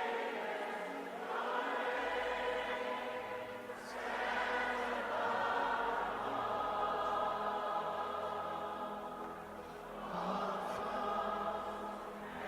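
Gospel worship singing by many voices over sustained music, in long held phrases that swell a little over a second in, around four seconds in and again near ten seconds.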